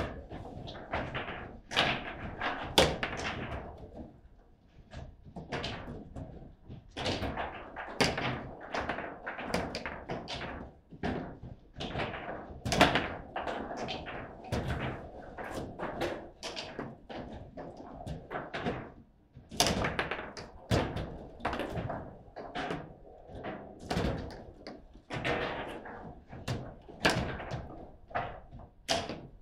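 Table football (foosball) game in play: sharp, irregular knocks and clacks of the ball, the plastic players and the rods, sometimes several a second, with a few brief lulls.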